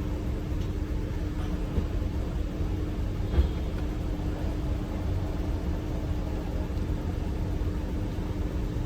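Porsche engine running at idle, a steady low rumble with a constant hum, from an engine with a misfire. A single brief knock stands out about three and a half seconds in.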